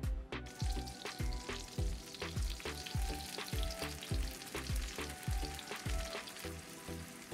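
Butter sizzling and bubbling in a hot frying pan, under background music with a steady drum beat that is louder than the sizzle.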